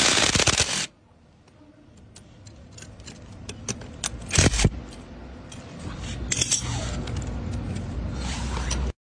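Power drill cutting a thread into steel plate with a drill-tap bit, running until about a second in and then stopping. Then light metallic clinks and scrapes as the steel bit is handled, with a louder metal clatter around the middle.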